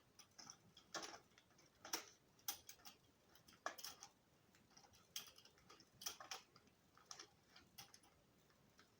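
Faint, irregular clicks and light taps from objects being handled and set down, about a dozen spread unevenly.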